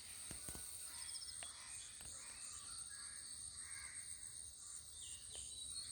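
Faint outdoor ambience: a steady, high insect drone with a crow cawing a few times.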